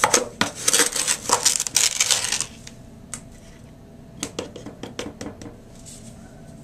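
Red plastic measuring cup scooping and scraping through sugar in a plastic tub: a rapid run of scratchy clicks and knocks for about two and a half seconds, then a few scattered taps as the filled cup is lifted out.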